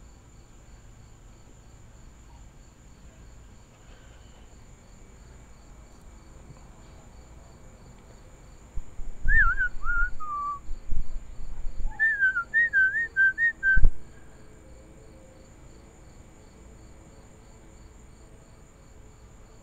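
A person whistling close by: a short run of falling notes, then a second wavering, warbled phrase a couple of seconds later. A sharp knock comes at the end of the whistling, and crickets chirp steadily throughout.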